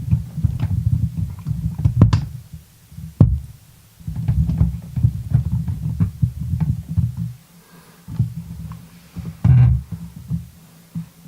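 Close handling of a Securit 5-pin pin tumbler lock during picking: low, uneven handling noise with many small sharp clicks of metal tools and pins. The handling noise drops out briefly twice, about a third of the way in and again past the middle.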